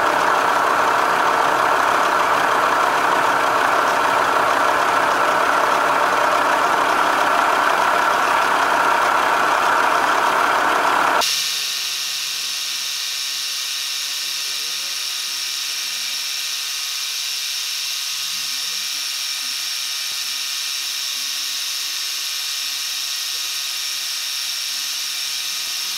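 Milling machine cutting metal with a two-flute carbide end mill set at 1850 RPM: a loud, steady, noisy cutting sound for about eleven seconds. It then changes abruptly to a quieter, steady high whine made of several fixed tones.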